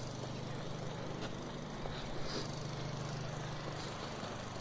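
Vehicle engine running steadily with a low, even hum, and a few faint high chirps over it.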